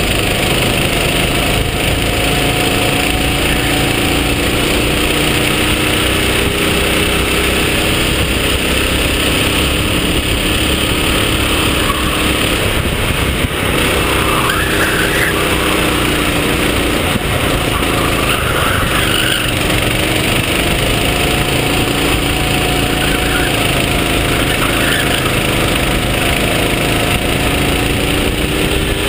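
A racing kart's small engine heard onboard, running hard, its pitch climbing on the straights and dropping off into the corners several times. A steady rush of wind and road noise runs under it.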